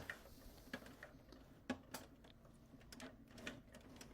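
Faint, irregular clicks and knocks of a metal 2U rack-mount server case being handled and pushed into place.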